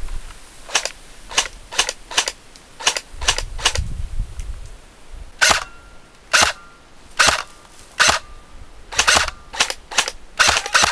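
Airsoft guns firing single shots: about twenty short cracks at uneven spacing, roughly two a second, some in quick pairs.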